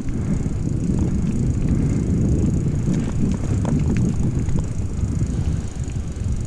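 Carrera Subway E 2.0 electric bike being ridden: a steady low rumble of tyres and wind on the rider's microphone, with scattered small clicks and rattles.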